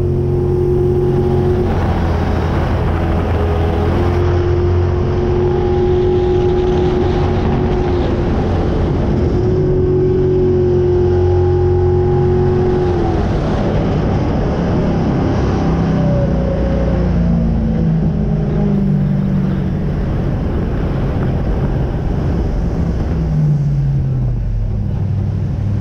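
Jetsprint boat engine running hard at speed, its note holding steady with short dips. From about halfway it falls in pitch in steps as the boat throttles back and slows almost to a stop, over rushing water and wind noise.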